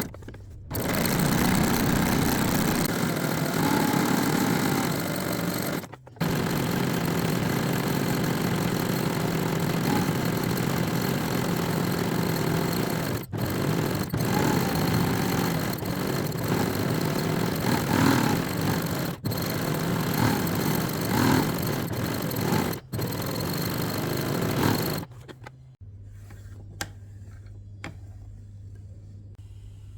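Janome domestic sewing machine running fast, stitching straight-stitch free-motion embroidery, with a few brief pauses. It stops near the end, leaving a low steady hum.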